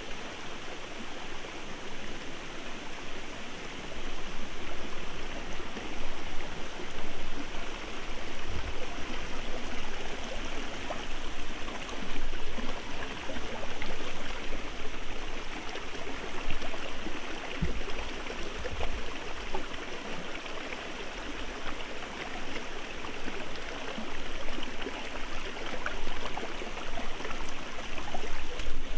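Shallow rocky forest stream flowing and splashing over stones in small cascades, a steady babbling wash of water.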